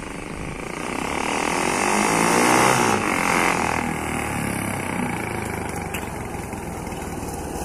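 A Kawasaki Barako motorcycle tricycle's single-cylinder engine running through a homemade 'chicken pipe' exhaust tip, a modification meant to give the exhaust a crisp, crackly note. It rides toward the listener, growing louder over the first three seconds, with the engine note rising and falling.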